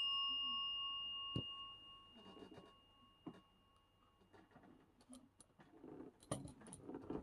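A bell's ring dying away, two clear tones fading out over the first three or four seconds. After that come a few faint clicks and soft rustles.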